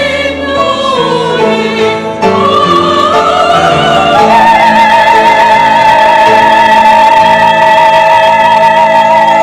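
Church choir with piano accompaniment singing the closing phrase of a hymn anthem. The voices rise and then hold a long final chord with vibrato from a few seconds in.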